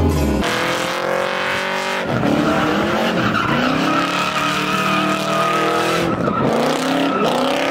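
Pickup truck doing donuts, its engine revving up and falling back again and again as the rear tires spin and squeal.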